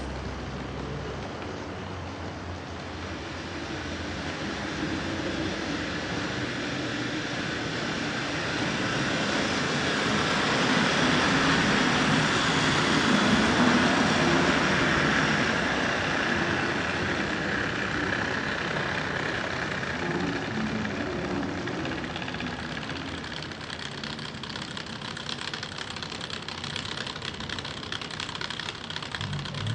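N scale model train running along the layout's track, a steady whirring of its small electric motor and wheels on the rails. It grows louder to a peak about halfway through, then fades as it passes by.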